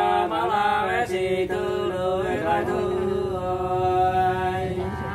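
Hát sli, the Nùng people's unaccompanied folk singing: long drawn-out notes that slide and waver in pitch, with short breaks between phrases.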